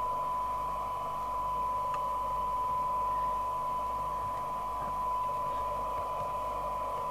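Steady test tone with a layer of hiss from the receive audio of a Rotel RVC240 FM CB radio. The radio is demodulating a weak test signal from a signal generator while its IF coils are being aligned for best sensitivity.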